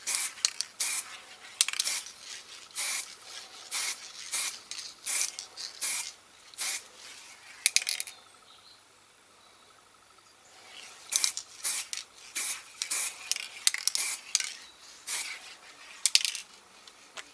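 Aerosol spray-paint can being shaken, its mixing ball clacking in quick rapid rattles, with a pause of a couple of seconds about halfway through.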